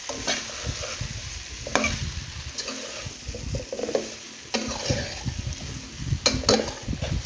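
Breadfruit and seasoning frying in a pot, sizzling while a spoon stirs and scrapes the bottom, with a few sharp scrapes against the pot, the sharpest two close together near the end. The pieces are starting to stick and brown in the pot.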